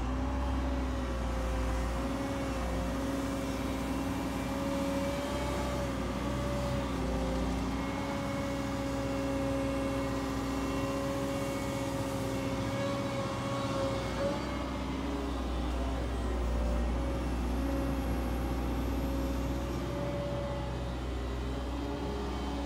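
Cat M315D wheeled excavator's diesel engine running steadily while the boom and bucket are worked, with a whine on top that wavers in pitch as the hydraulics move.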